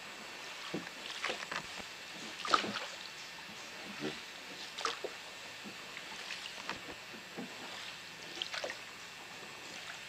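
Rowboat moving along a slow river: scattered soft splashes and knocks from the oars at irregular intervals.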